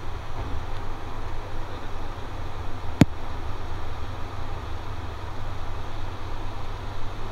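Cockpit noise of an ATR 72-600 turboprop on approach: a steady low hum from the six-bladed propellers under a constant rushing of air. One sharp click about three seconds in.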